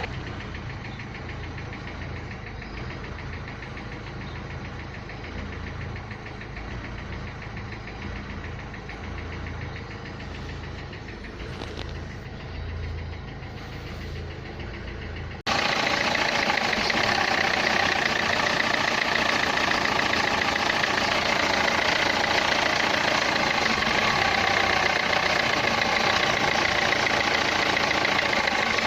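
Renault Clio 3 1.5 dCi four-cylinder diesel engine idling with a knocking noise that the title puts down to the injectors. About halfway through, the sound cuts abruptly to a louder, brighter take of the same engine running.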